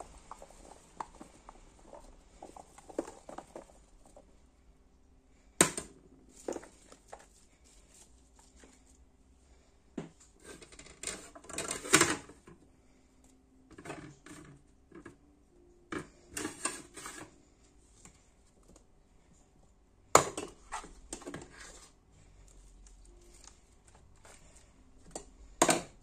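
Chopped fruit tipped from a plate into a plastic tray: irregular soft pattering and clicking as the pieces land, with a few sharp knocks, about four of them spread through.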